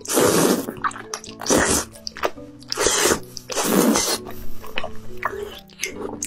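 Close-miked slurping of saucy tteokbokki rice cakes into the mouth, four loud slurps in the first four seconds, over background music.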